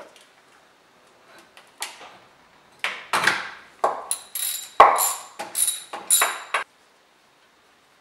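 Ratchet wrench on a long socket extension working a nut on the alternator: a few light clicks, then from about three seconds in a quick run of sharp ratcheting strokes with a metallic ring, stopping abruptly about a second before the end.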